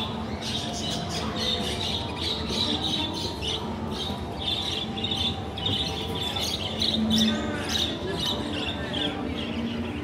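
Many caged pet birds chirping at once: dense, continuous overlapping short calls.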